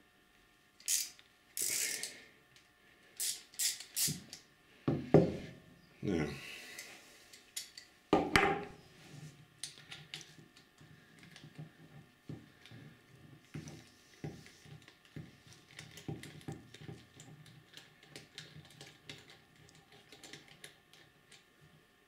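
Socket ratchet undoing the 8 mm through-bolts of a starter motor end cap. A few sharp clicks and deeper knocks come in the first eight seconds or so, then a long run of light, quick ratchet clicks.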